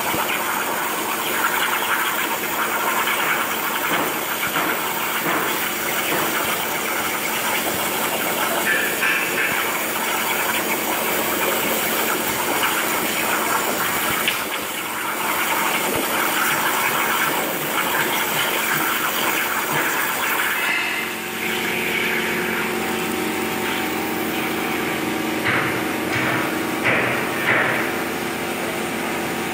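CNC plasma cutter's torch cutting steel plate: a steady, loud hiss of the plasma arc. About two-thirds of the way in the sound briefly dips and shifts, with a steady hum coming up under the hiss and a few sharp clicks near the end.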